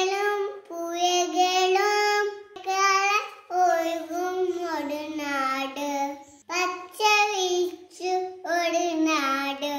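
A young girl singing a short Malayalam song unaccompanied, in short phrases with brief pauses for breath between them.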